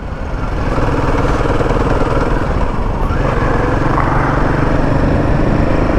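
Royal Enfield Himalayan 450's single-cylinder engine running steadily under way, with wind and road noise on the bike-mounted microphone; it grows louder over the first second, then holds.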